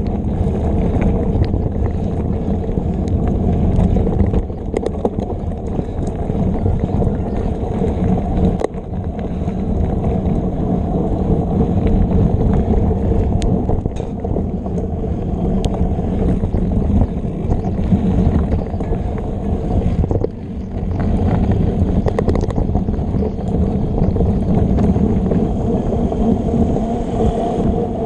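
Steady, muffled rumble of a mountain bike ridden fast along a dirt trail, picked up by a camera riding along: tyre noise and wind on the microphone, with scattered knocks from bumps in the trail.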